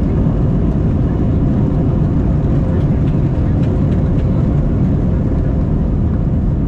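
Jet airliner cabin noise heard from a seat over the wing: a steady, loud low rumble of the engines and the wheels as the plane rolls along the runway, with a faint steady hum above it.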